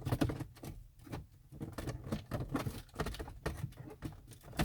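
Plastic dashboard trim being handled and pried out of its clips, irregular small clicks, knocks and scraping.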